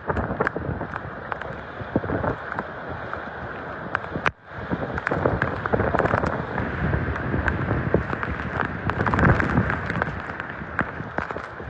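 Heavy thunderstorm rain pouring down, with many sharp drop impacts close by. The sound cuts out briefly about four seconds in.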